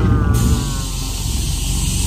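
Dinosaur sound effect played for animatronic T. rex heads on a dark boat ride: a wavering cry that falls slowly in pitch over a deep, uneven rumble.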